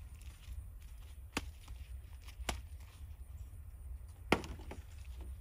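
Hand trowel digging into raised-bed soil while a seedling is unpotted: three sharp taps, the loudest near the end, over a low steady rumble.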